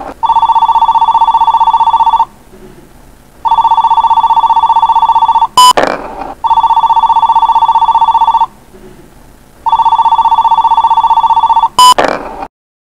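Telephone ringing in steady electronic bursts of about two seconds, two rings at a time. After each pair comes a sharp click and a short rattle as a marble drops out of the marble answering machine and rolls down its track; this happens twice.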